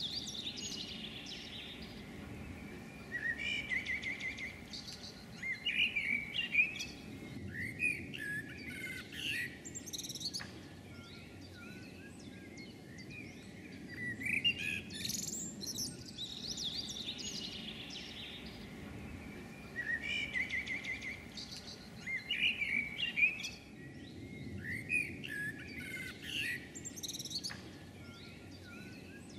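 Songbirds singing: short chirping phrases every few seconds over a steady low background noise.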